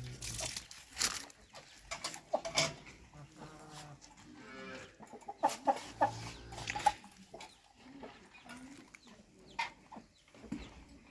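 Chickens clucking among farm animals, with scattered sharp clicks and knocks throughout and a longer pitched call near the middle.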